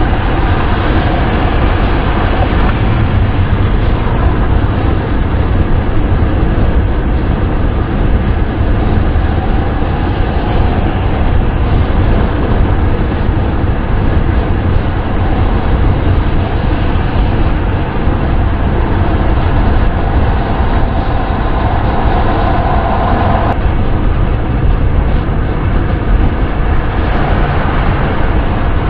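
Steady wind and road noise of a car driving at speed, a dense rumbling rush strongest in the low end. A faint mid-pitched tone within it cuts off about twenty-three seconds in.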